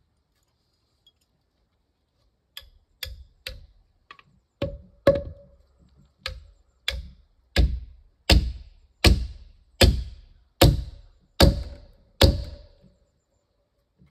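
Hammer blows driving a nail or spike into wood. First come three or four light taps, then about a dozen harder, regular strikes roughly every three quarters of a second, growing louder. Several strikes carry a short ringing note.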